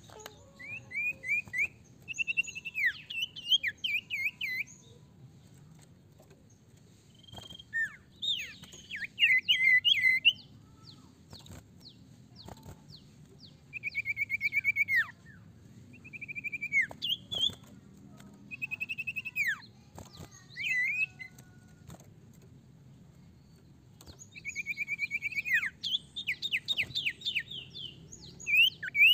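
Common iora singing in bouts of rapid chattering trills, each a run of fast repeated notes, some sweeping downward, lasting one to three seconds, with pauses of a few seconds between bouts.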